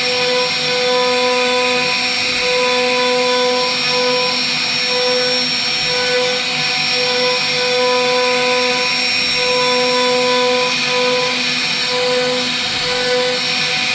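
CNC wood router carving a wooden board: the spindle runs with a steady high whine as the bit cuts the wood, under a lower hum that stops and restarts every second or two.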